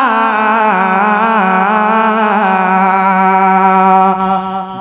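A man's solo voice singing a naat, holding one long drawn-out note with small ornamental turns. The note fades out near the end.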